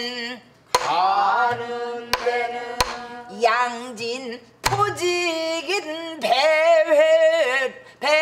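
A woman singing a pansori danga in long, wavering held notes, accompanying herself on a buk barrel drum with four sharp stick strokes in the first five seconds.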